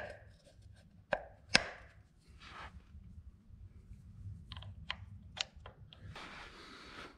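Sharp clicks and taps of a tractor distributor being put back together by hand, as the cover plate is set over the breaker points and the rotor is pushed onto the distributor shaft. The loudest clicks come at the start and about a second and a half in, with a run of smaller clicks a little past the middle, over a faint low hum.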